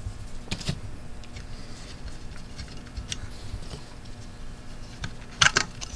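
Scattered light clicks and taps as a Mauser C96 pistol is handled, its grip screw lifted out and the wooden grip panels worked loose, with a sharper cluster of clicks near the end.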